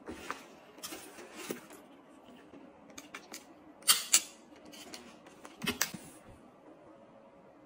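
Clicks and taps from a Fendi First clutch's gold metal frame and clasp as it is handled, opened and snapped shut, with the loudest pair of clicks about four seconds in and another cluster near six seconds.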